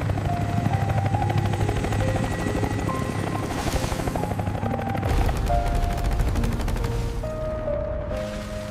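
Helicopter rotor chopping rapidly under dramatic background music; about five seconds in the chopping fades into a deeper rumble.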